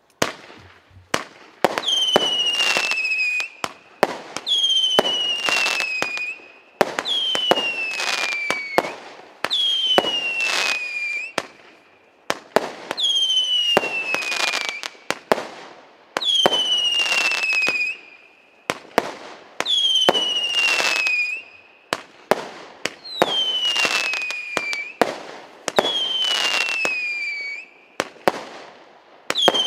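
A multi-shot consumer firework cake firing in sequence: sharp launch pops and bangs, with a falling whistle from a whistling shot about every two and a half seconds.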